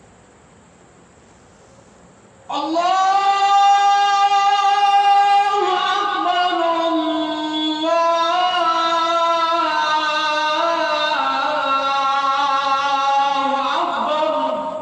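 A man's voice chanting the azan, the Islamic call to prayer: one long drawn-out phrase that begins about two and a half seconds in, holding its pitch and then stepping down and up until it ends.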